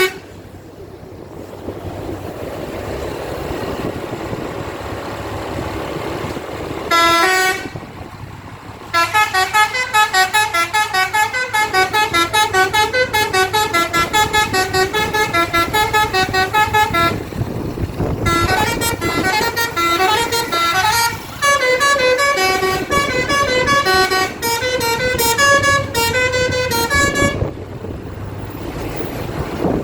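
Bus basuri (telolet) horn playing quick melodies of short stepped notes in two long runs, with a break about 17 seconds in. Before that, a short horn blast about seven seconds in over the steady noise of the bus.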